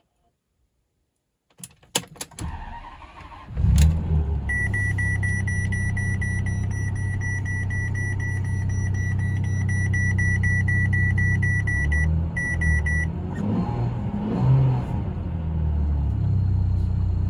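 Ferrari 612 Scaglietti's 6-litre V12 being started, heard from inside the cabin: a few clicks, a short crank, then the engine catches and settles into a steady idle. A repeating electronic warning beep sounds over the idle through the middle. The engine gets one short rev near the end.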